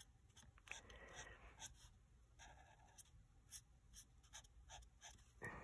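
Faint scratching of a dark green Stampin' Blends alcohol marker's fine tip drawing short strokes on cardstock, heard as many brief, quiet scratches.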